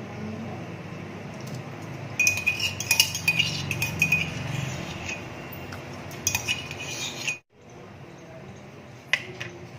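Kitchen utensils clinking and scraping against a metal pot, in two spells of quick ringing clinks, stopping suddenly, then one more click near the end.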